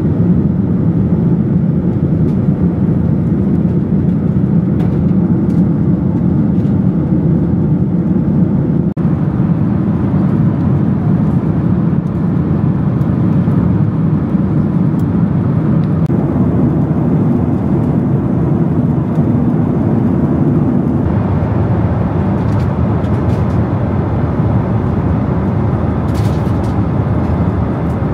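Cabin noise of a Boeing 737 airliner: a steady, loud rumble of engines and rushing air, with a few faint clicks. It turns a little brighter and hissier about two-thirds of the way through.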